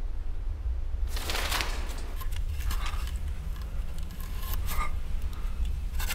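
Horror-film sound design: a steady low rumbling drone, with a burst of rustling noise about a second in, then scattered small clicks and clinks.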